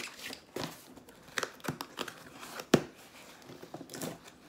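Candle packaging being torn open and handled: scattered rustling and tearing with a few sharp clicks, the loudest about three seconds in.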